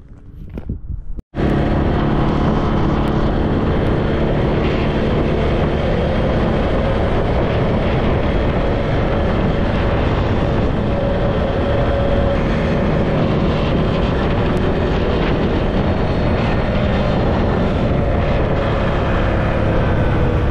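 ATV engine running steadily under way, with wind buffeting the microphone. It cuts in suddenly about a second in.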